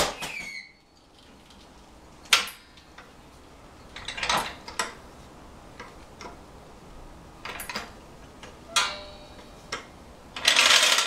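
Scattered metallic clanks and knocks from a hydraulic floor jack and tools being handled as the car is let down off the jack, with a sharp click and short ringing at the start and a longer rattling scrape near the end.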